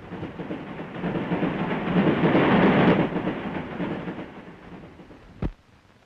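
A rumbling noise swells for about two seconds, peaks, and fades away, like something heavy passing by. A single sharp pop comes about five and a half seconds in.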